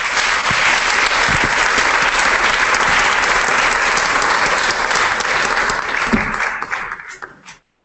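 Audience applauding: a dense, steady round of clapping that thins out and dies away near the end.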